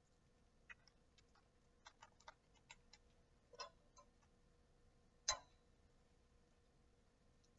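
Faint scattered clicks and taps of a plastic IV piggyback bag and its tubing being handled and hung on a metal IV pole hook, with one sharper click about five seconds in.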